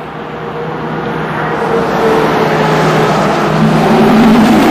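A road vehicle approaching on the highway, its tyre and engine noise growing steadily louder for about four seconds.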